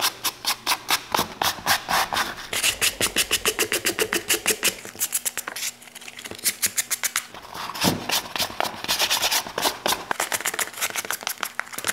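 Wire-bristled suede brush scrubbed quickly back and forth over a dirty rough-out leather boot, about four to five scratchy strokes a second, with a short lighter spell midway. It is dry-brushing off the loose surface dirt and dust before the leather is cleaned.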